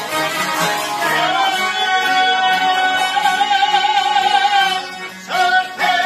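Albanian folk song: a man sings a long held, high note with vibrato over rapidly plucked çifteli and other long-necked lutes. The voice comes in about a second in, breaks off briefly near the end, then carries on.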